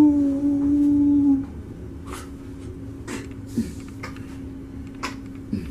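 A man's voice holding a long 'ooh' note for about two seconds, rising at the onset and then steady, cut off abruptly; afterwards a few light clicks or knocks.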